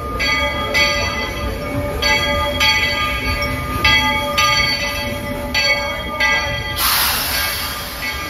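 Baldwin-built steam locomotive Walter E. Disney rolling into the station with its bell ringing, a fresh clang roughly every half second to second. A loud hiss cuts in near the end.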